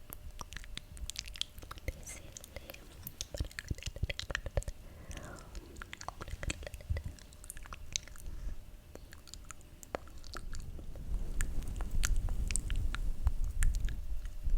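Close-miked ASMR mouth sounds: many quick wet clicks and smacks. About eleven seconds in, a louder low rumbling noise joins them.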